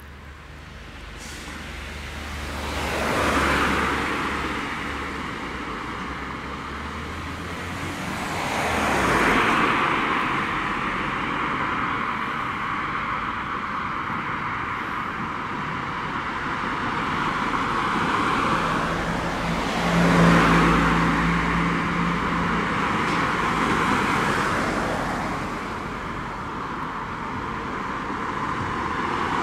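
Cars driving past one after another. Three of them swell up and fade away, the loudest passing about two thirds of the way through.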